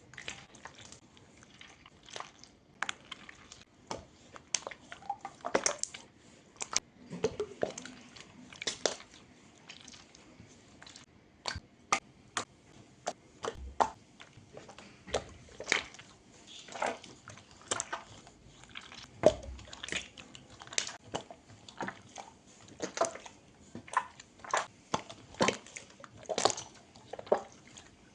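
Slime being squeezed, stretched and poked by hand, giving a steady run of irregular wet clicks and small pops, several a second.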